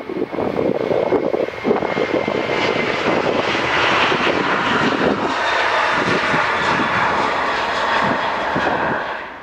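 Airbus A330-200 twin jet engines running loud and steady on the runway, a dense rushing roar with a faint steady whine. It fades in at the start and cuts off abruptly at the end.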